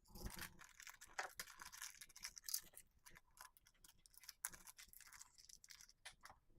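Faint, irregular clicking and rustling of small metal craft parts being handled: chain, jump rings and enamel charms of a keychain kit, with small pliers.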